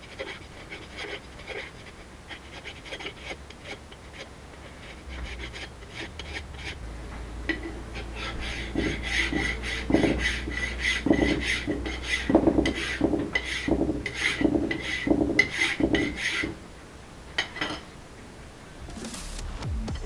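A hand file stroking back and forth over a part of a hydraulic backhoe swing cylinder, filing down raised high spots left by hammer blows before assembly. The strokes are light at first, then harder at about one a second, and they stop about 16 seconds in.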